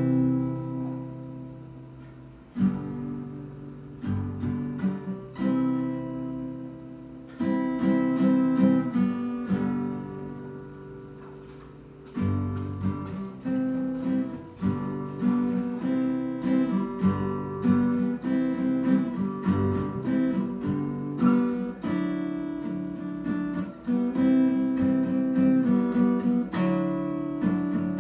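Acoustic guitar strummed: chords struck one at a time and left to ring and fade, then steady rhythmic strumming from about halfway through.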